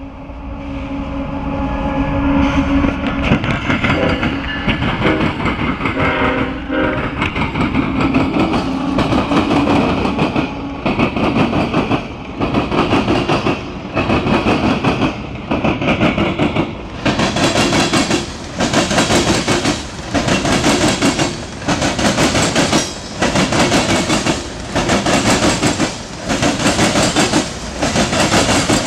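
A CSX coal train passing close by: the diesel locomotives' engines grow louder and go past in the first ten seconds or so, then loaded coal hopper cars roll by with a regular clickety-clack of wheels over the rail crossing, about one beat a second.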